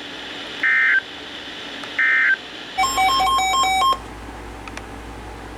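Two short EAS digital data bursts about 1.4 seconds apart: the end-of-message tones that close a weather alert broadcast. Then comes a rapid run of touch-tone-like beeps lasting about a second, and after it a faint low hum.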